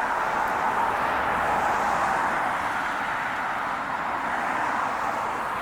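Steady road traffic noise from nearby vehicles, easing slightly near the end.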